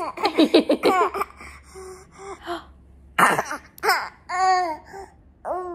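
A baby's vocal sounds. A quick run of laughter at the start is followed by short cough- and throat-clearing-like noises and high-pitched squeals.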